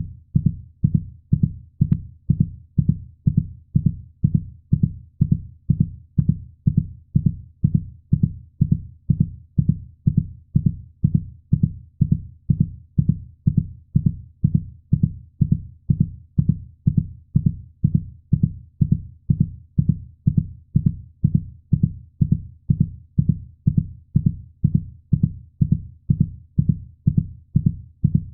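Heartbeat sound: a steady, even rhythm of low thumps, about two a second, unchanging throughout.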